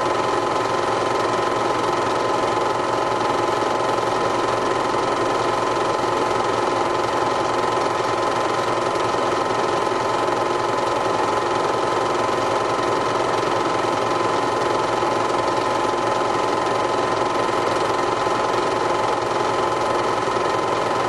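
Steady, unchanging mechanical hum with several held tones, like a small motor running.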